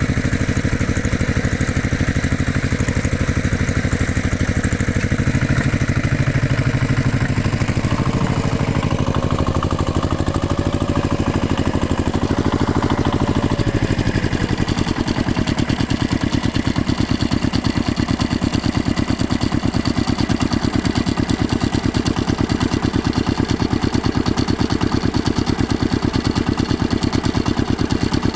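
Heavy machinery engine running with a fast, even pulse. Around a third of the way in a faint whine wavers up and down, and for the second half the engine runs on steadily at idle.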